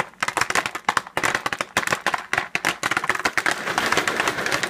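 Jiffy Pop popcorn kernels popping rapidly inside the aluminium foil pan's expanded dome: a dense run of sharp pops that thickens into near-continuous crackling in the second half.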